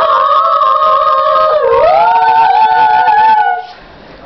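Voices singing a cappella, holding one long wavering note on the word 'home' that dips and then rises in pitch about halfway through, then breaks off near the end.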